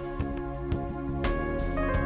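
Instrumental background music with held chords that change every second or so.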